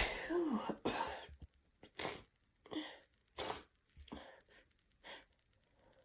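A woman's wet sneeze, brought on by chhinkni snuff in a congested nose, trails off with a short voiced breath. Short sharp sniffs or breaths follow about once a second, growing fainter.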